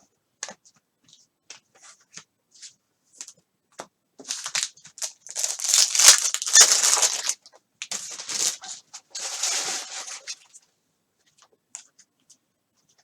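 Trading-card pack wrapper being torn open and crinkled, in two loud stretches from about four seconds in to about ten seconds, with light clicks of cards being handled before and after.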